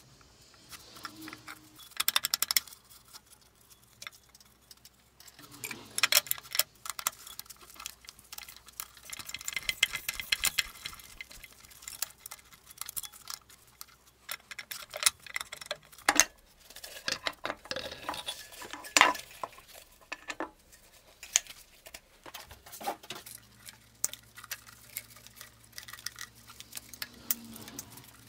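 Steel gears, a bearing and a cover plate from a geared-head drill press gearbox handled during disassembly: irregular clinks, clanks and knocks of metal parts against each other and the gearbox housing, a few louder knocks among them.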